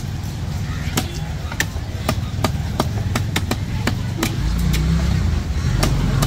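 Knife chopping a fish fillet on a wooden chopping block: sharp, irregular knocks, two or three a second. Beneath them is a low steady hum that grows louder about four and a half seconds in.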